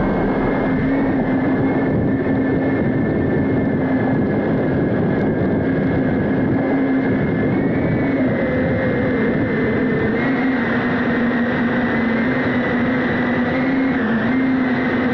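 FPV drone's motors and propellers buzzing steadily, picked up by the camera on board, the pitch stepping slightly up and down as the throttle changes.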